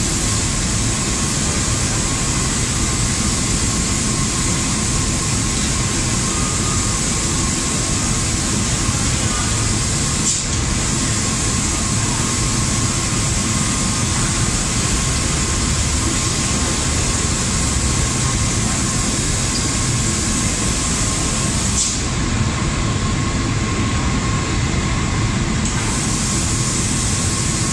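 Steady hiss and machine hum of a robotic liquid spray-painting booth at work, with a faint steady tone and a few light clicks; the highest part of the hiss drops away for a few seconds past the middle.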